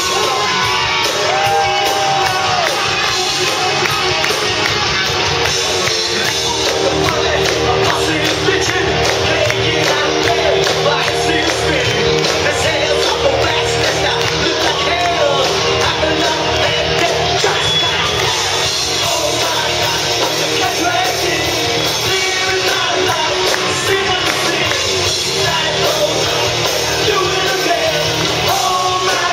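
Live rock band playing, with electric guitars and a male lead singer singing and shouting into a microphone.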